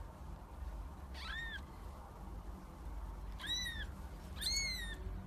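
A cat meowing three times: short, high-pitched calls that rise and fall, the last two louder.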